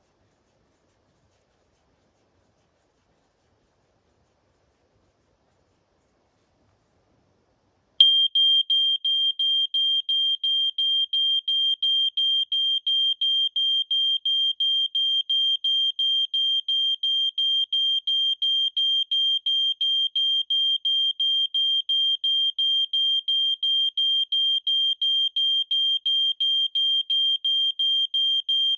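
Prosafe photoelectric smoke alarm's piezo sounder going off after about eight seconds of near silence: a loud, high-pitched tone with short rapid breaks, set off by deodorant spray in a test.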